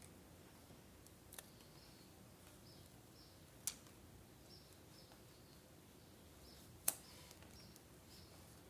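Quiet scrapbooking work with three isolated sharp clicks a few seconds apart, from handling craft tools and paper.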